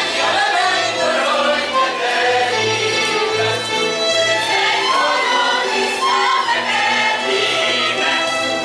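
Live Hungarian folk dance music from the Hajdúság region: a string band of fiddles and bass plays while a group of voices sings along.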